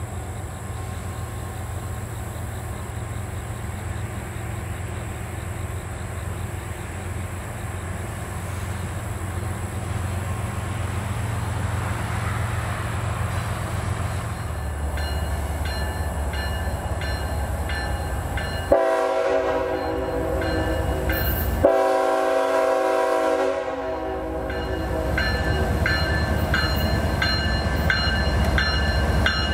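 Diesel freight locomotives approaching with a steady low rumble that grows louder about halfway through. The horn then sounds two long blasts of a multi-note chord, back to back, about two-thirds of the way in, and the engines keep rumbling afterwards.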